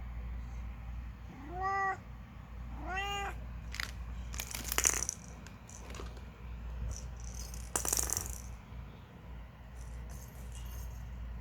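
A cat meows twice, two short calls that rise and fall about a second apart, followed by bursts of rattling clatter around four to five seconds in and again near eight seconds.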